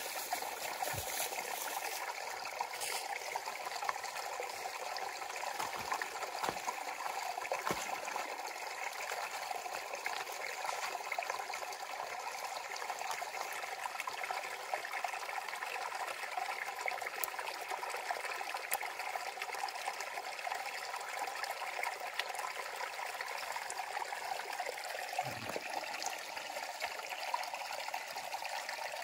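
Small forest stream trickling steadily over rocks, with a few faint clicks scattered through it.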